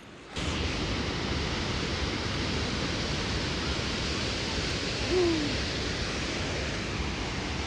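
Steady, even rush of a fast-flowing river or waterfall, with a brief faint sliding tone about five seconds in.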